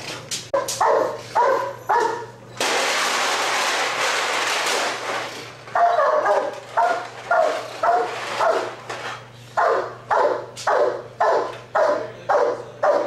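Giant schnauzer barking in a steady series, about two barks a second. Near the start the barking is broken by about three seconds of loud rushing noise.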